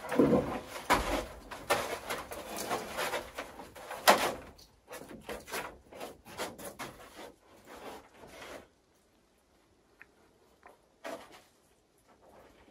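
Wooden knocks, bumps and scuffs from a person climbing across peeled-log rafters and purlins of a cabin roof frame, with one loud knock about four seconds in. The knocking stops about nine seconds in, leaving near silence with a couple of faint clicks.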